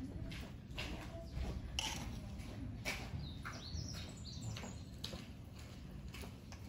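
Small birds chirping over a steady low background rumble, with scattered short clicks.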